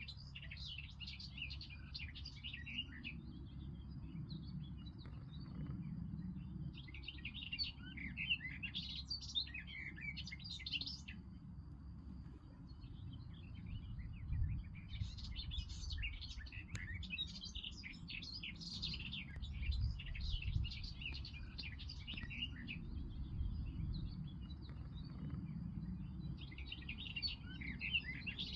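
Small songbirds chirping and twittering in spells of quick, high notes that come and go every few seconds, over a steady low rumble.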